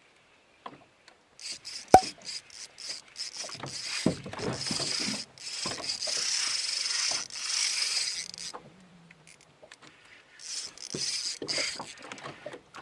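Fishing reel being cranked in stop-start runs while jigging, the handle and gears giving a rasping, ratcheting whir. There is one sharp click about two seconds in.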